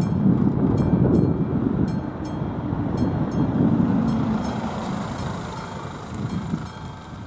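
Cars driving over a level crossing, a rumble that fades toward the end, while the crossing's classic warning bell strikes rapidly, a few strokes a second, in the background.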